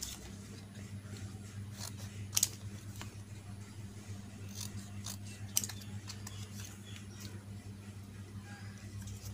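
Scissors snipping shiny paper: a handful of short, crisp snips spaced irregularly, the loudest about two and a half seconds in, over a steady low hum.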